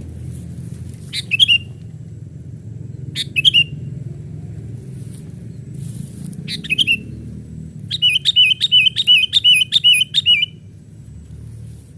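Sooty-headed bulbuls calling: single short chirps a few seconds apart, then a quick run of about nine notes from about eight seconds in. A steady low rumble runs underneath.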